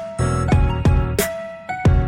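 Background music with a steady beat: pitched instrumental notes over regular percussion hits.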